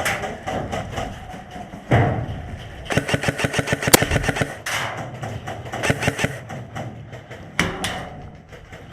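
Airsoft guns firing rapid full-auto bursts, a long string about three seconds in and another around six seconds, with one sharp crack near the four-second mark.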